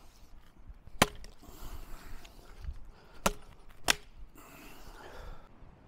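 A curved machete chopping at a dry wooden branch: three sharp chops, one about a second in and two more half a second apart a little past the middle, with rustling of twigs between strikes.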